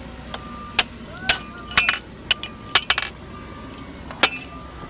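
Mahindra backhoe loader at work: a string of about a dozen sharp, irregular metallic clinks and clanks over the diesel's steady low running, with a reversing beeper sounding.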